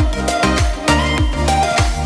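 Music with a steady dance beat and deep bass notes that slide downward.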